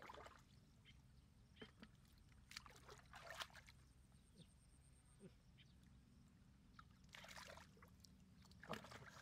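Faint splashing and sloshing of shallow muddy water as hands grope through it, in a few separate bursts, the largest about three and seven seconds in.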